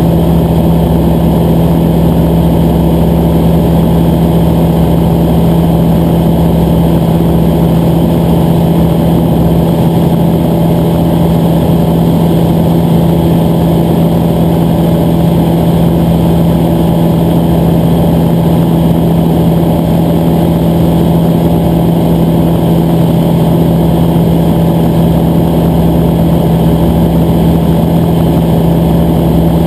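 Texan 550 light sport aircraft's piston engine and propeller droning at a steady cruise setting, heard from inside the cockpit, with one constant low pitch that doesn't change.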